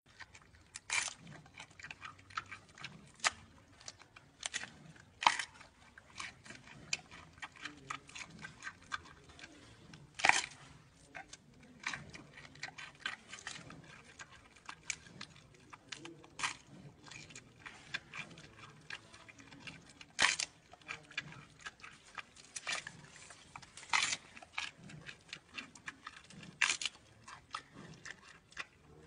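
Giant panda biting and chewing bamboo: irregular crunching, with a louder snap every few seconds.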